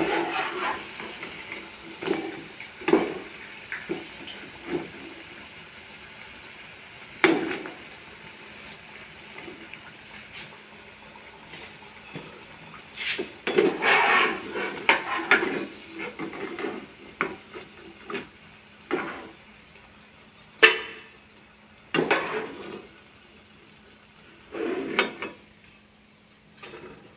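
A slotted spoon scraping and knocking against a non-stick pan as fried cabbage pakoras are lifted out of hot oil, over a faint steady sizzle. The pakoras are golden brown and done. The clatter comes in scattered knocks, busiest around the middle and again near the end.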